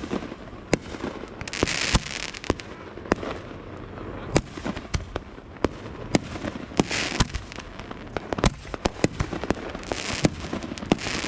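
Fireworks going off, with many sharp bangs at irregular intervals. Three longer hissing bursts come at about two, seven and ten seconds in.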